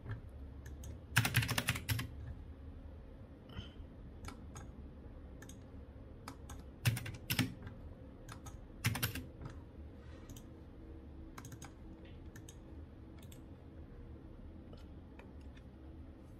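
Computer keyboard typing and mouse clicks in short bursts of keystrokes, with scattered single clicks between and a faint steady hum underneath.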